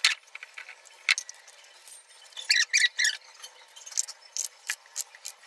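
Hands scraping and scooping wet dosa batter around a stone grinding mortar, giving sharp clicks and wet rubbing, with a quick run of short squeaks about two and a half seconds in.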